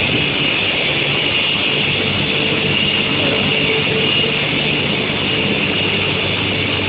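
Steady industrial machinery noise from a steel-sheet quenching and tempering furnace line: a continuous hum with a high, steady whine above it and no pauses.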